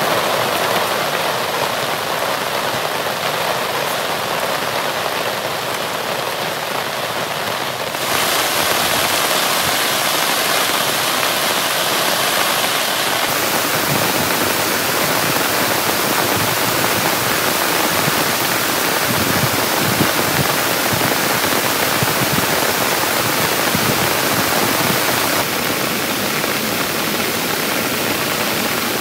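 Heavy rain falling steadily, a dense even hiss. Its character changes abruptly about 8 seconds in, again about 13 seconds in and near the end, as if separate recordings were joined.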